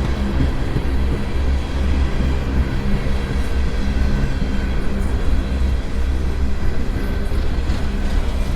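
Empty coal train of hopper cars rolling past close by while slowing: a steady, loud low rumble with faint steady tones above it.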